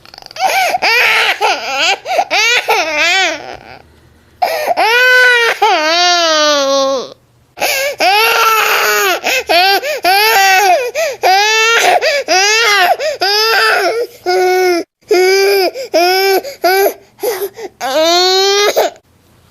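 A baby crying: loud, high-pitched wails broken by short gaps for breath. Choppy sobbing bursts alternate with a few longer wails that rise and then fall.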